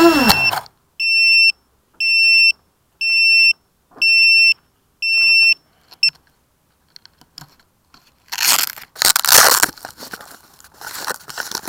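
FPV drone motors winding down and stopping, followed by five steady high electronic beeps, each about half a second long and about a second apart. A burst of rustling, crunching noise comes near the end.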